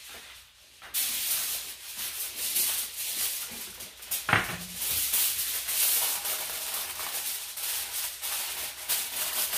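Aluminium foil rustling and crinkling as it is shaped over the pot of rice to cover it, starting about a second in, with one sharp knock about four seconds in.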